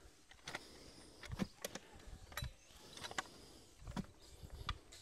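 Manual clamshell post-hole digger (boca de lobo) being driven into damp earth: a series of faint thuds and scrapes, about one a second, as the blades bite into the soil and are worked in the hole.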